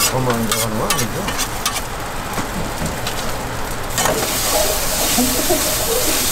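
A few sharp clicks and clatters of cooking utensils, then about four seconds in a strong sizzling starts on a hot griddle as street toast is cooked.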